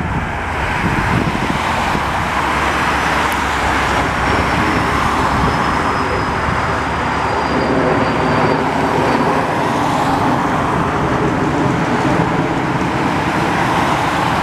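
Road traffic: cars passing close by on the road, a steady wash of tyre and engine noise.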